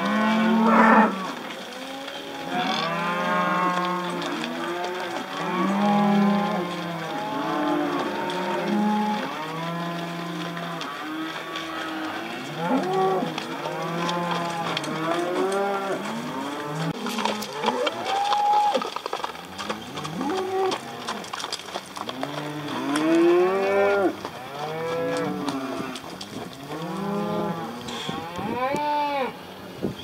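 A herd of cattle on a drive mooing, with many overlapping calls one after another and the loudest about a second in.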